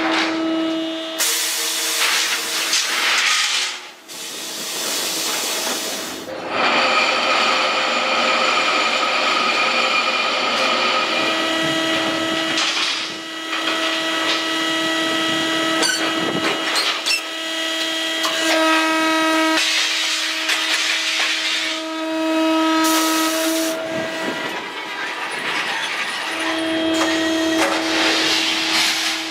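Hydraulic rebar guillotine shear at work: a steady pitched machine hum that stops and starts, alternating with several bursts of hissing noise.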